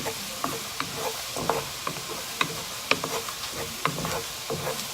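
Garlic sizzling in melted butter in a pan while it is stirred, with irregular clicks and taps of the utensil against the pan several times a second. The garlic is being toasted until golden.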